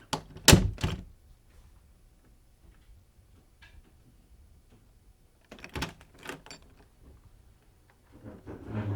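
A few sharp knocks and thuds in two clusters, three near the start and two or three about six seconds in, with a short low hum near the end.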